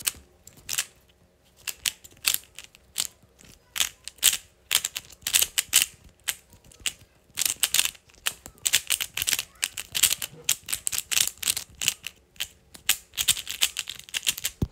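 3x3 speedcube being turned fast in a timed solve: rapid plastic clacking of the turning layers in quick runs, broken by short pauses.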